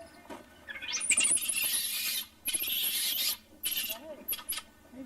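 A harsh rasping, scratching noise in several bursts, the longest about a second and a half.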